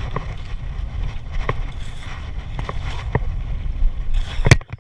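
Wind rumbling on the microphone over a boat at sea, with scattered knocks and one loud thump near the end.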